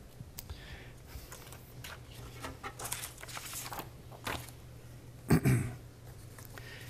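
Rustling and small clicks and knocks of objects being handled at a pulpit, with one louder short thump about five seconds in.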